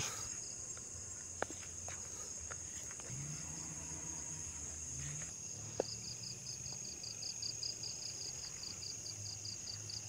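Night insects calling: a steady high-pitched trill, joined about halfway through by a second insect chirping in quick, even pulses, about four a second. Two sharp clicks stand out, one early and one just before the pulsing starts.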